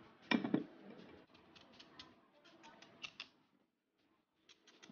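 Raw pumpkin being cut into chunks with a knife over a plate: a soft knock about half a second in, then small clicks and scrapes of the blade and of pieces being set down, pausing briefly near the end.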